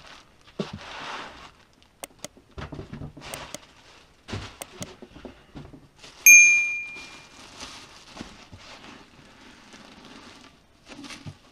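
Plastic bag, wrapping and foam packing rustling and knocking as a boxed resin 3D printer is unpacked by hand. About six seconds in, a single bright bell ding rings out and fades, a notification sound effect accompanying an on-screen subscribe banner.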